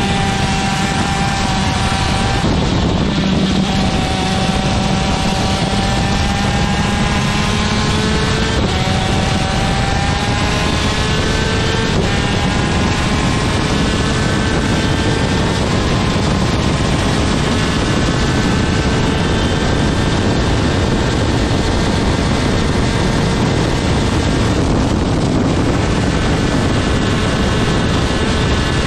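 Superkart's two-stroke TM engine running at race speed, its pitch climbing and dropping back several times in the first half, then holding high and steady, with wind noise over it.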